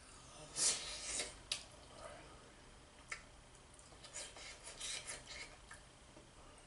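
A metal spoon scraping across a ceramic plate while scooping up curry and rice: a spell of rasping scrapes about half a second in and another about four seconds in, with a couple of sharp clinks between.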